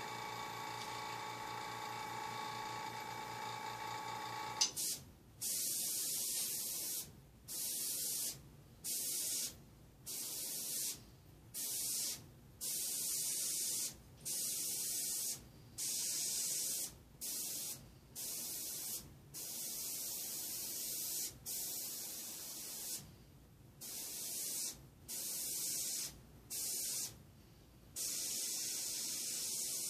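An airbrush spraying paint in short hisses, each lasting about a second, on and off as the trigger is worked, over a dozen times. For the first few seconds before the spraying there is only a steady hum, from the air compressor.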